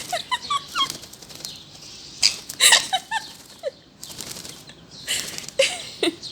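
Bird wings flapping in short scuffling bursts, strongest about two to three seconds in and again near the end, mixed with short chirping calls from the parrot and chick.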